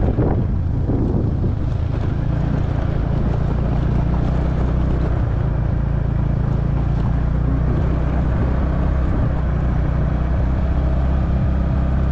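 Motorcycle engine running at a steady pace while riding an unpaved gravel road, with wind on the microphone.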